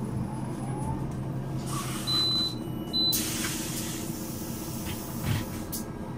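The DAF 9.2-litre horizontal inline-six diesel of a Solaris Urbino 12 III bus idling with a diesel clatter. A short high beep sounds about two seconds in and again a second later, then a hiss of air runs for a couple of seconds.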